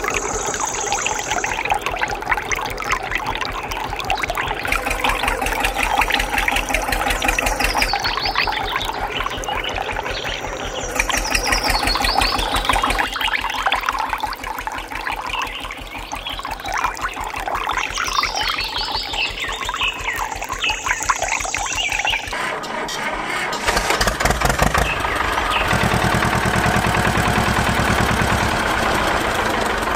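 A tractor engine running steadily under background music, turning to a low pulsing note in the last few seconds.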